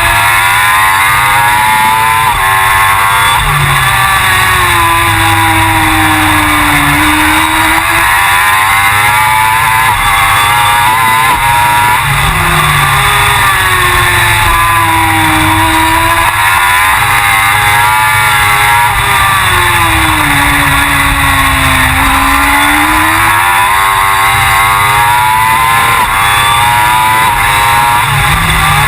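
Suzuki GSX-R1000 superbike's inline-four engine at racing speed, its pitch climbing and falling again and again as the bike accelerates and slows through the lap.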